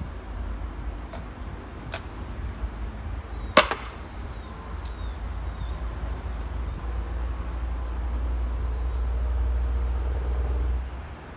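Metal clicks and clacks from a 37mm launcher being handled and reloaded at a table, with one sharp, loud clack about three and a half seconds in. A low rumble runs underneath, swells in the second half and stops abruptly near the end.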